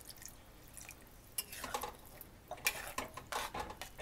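Water poured from a steel tumbler into a pan of thick curry masala, faintly, then a metal spatula stirring it in, scraping and clinking irregularly against the metal pan from about a second and a half in.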